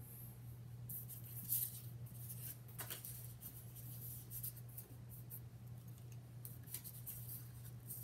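Teflon bone folder rubbing along scored black paper, burnishing the folds: a series of short, dry scrapes spread irregularly, over a steady low hum.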